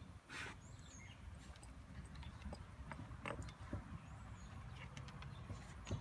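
Quiet backyard ambience: a low rumble of wind on the microphone, scattered light clicks, and two short high bird chirps, one about a second in and one about four seconds in.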